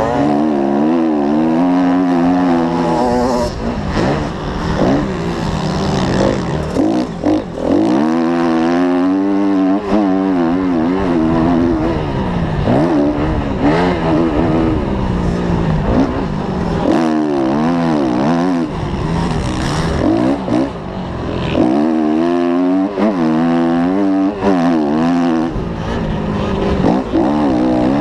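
Motocross bike engine ridden hard, its pitch climbing and dropping again and again as the throttle is worked and gears are changed, with wind noise on the microphone.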